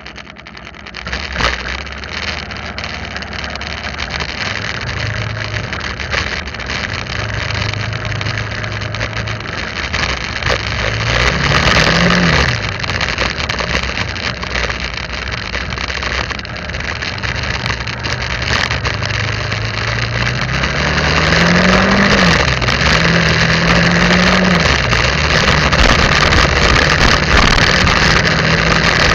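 Motorbike engine running as the bike rides along. Its pitch climbs and drops back sharply twice, as with gear changes. Wind and road noise grow louder as the bike picks up speed.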